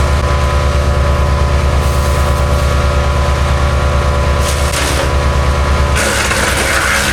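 MechMaxx B200 8-inch wood chipper's gasoline engine running steadily at speed, with short bursts of noisy crackling about four and a half seconds in and again near the end as branches are fed through and chipped.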